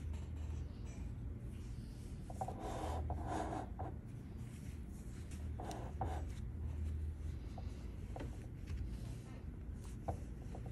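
Brass bezel pusher rubbing and scraping on a sterling silver bezel, pressing it down over a moss agate cabochon to set the stone. The rubbing comes in soft patches, stronger about two to four seconds in and again near six seconds, with a few light clicks near the end, over a low steady hum.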